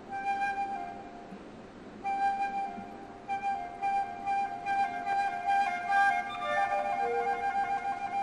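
Instrumental music carried by a flute melody of sustained notes over softer accompaniment.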